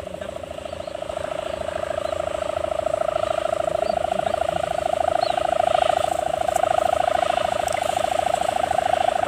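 Sendaren kite hummer on a flying tanggalan kite, droning steadily in the wind with a fast, even pulsing buzz. This is the 'dompeng' voice, tuned to sound like a small diesel engine. It grows a little louder over the first few seconds.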